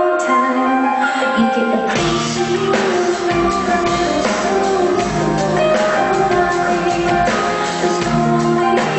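Live rock music: a woman singing with her band, the drums and bass coming in about two seconds in and the full band then playing on.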